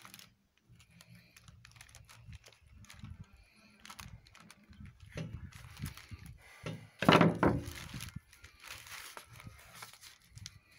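Handling noise from a knife and gloved hands cutting and probing inside a dead bird's opened body on a black plastic bin bag: irregular small clicks, knocks and plastic rustling, with one louder burst about seven seconds in.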